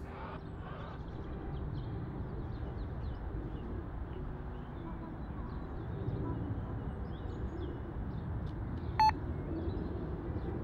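A single short electronic beep from a Fox RX+ carp bite alarm, about nine seconds in, as the line is pulled. It sounds over a steady low background rumble.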